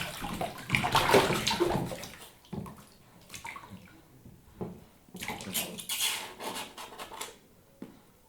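Bath water splashed by a baby playing in a bathtub: a dense run of loud splashes for the first two seconds, then scattered smaller splashes that fade out near the end.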